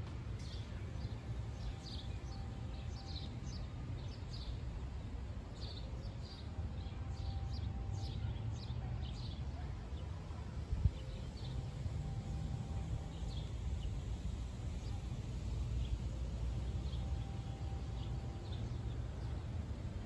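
Small birds chirping, many short high calls, busiest in the first half and thinning out later, over a steady low outdoor rumble.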